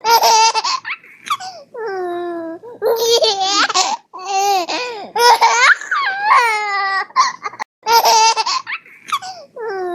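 A baby laughing: bursts of high-pitched giggles and squeals in quick repeated pulses, with short breaths between bursts.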